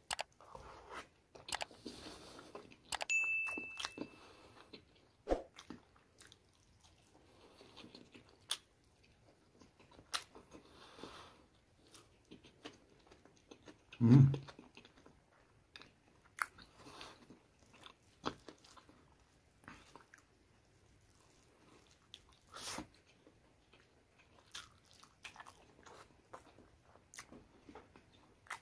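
Close-up mouth sounds of eating by hand: wet chewing, lip smacks and small clicks as rice and curried chicken liver and gizzard are chewed. There is one loud low thump about halfway through.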